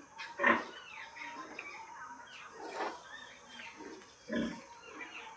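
A sow grunting to call her piglets to suckle: three short grunts spaced a second or two apart, the loudest about half a second in. A steady high-pitched pulsing chirp runs underneath.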